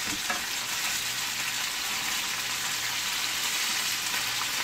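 Pork ribs sizzling steadily in hot oil in a cast-iron skillet as they are seared.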